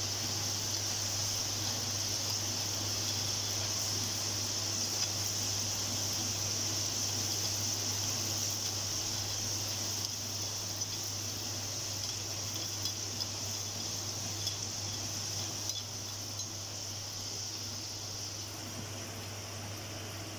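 Soaked chana dal deep-frying in hot oil in a kadhai: a steady sizzling hiss that slowly eases as the lentils' moisture cooks off, with a few light clinks of a metal spoon against the wire skimmer. A steady low hum runs underneath.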